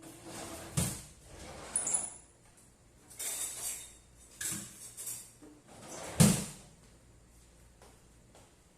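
Kitchen work noises: a string of about six knocks, scrapes and rustles, like things being handled and set down, with a short high squeak near two seconds and the loudest thump a little after six seconds.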